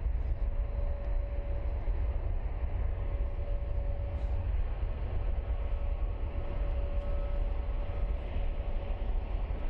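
Airbus A321 jet engines at takeoff power: a steady, heavy rumble with a faint steady whine over it.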